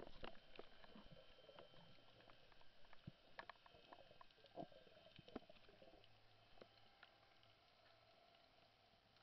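Faint underwater sound through a camera's waterproof housing: scattered soft clicks and short squeaks, busiest in the first six seconds, over a faint low hum.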